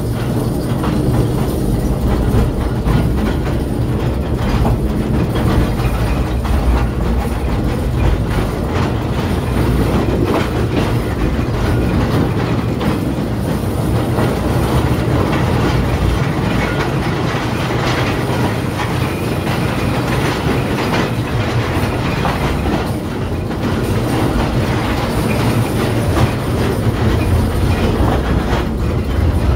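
1948 electric mine locomotive running under power along the mine track, a steady rumble with continuous rattling and clatter of its wheels on the rails.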